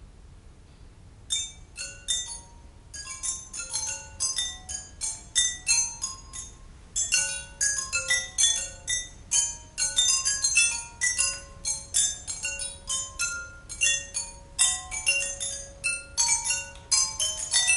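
Tuned pipes struck with thin sticks by three players, in a fast interlocking rhythm of short ringing pitched notes that begins about a second in after a near-quiet pause.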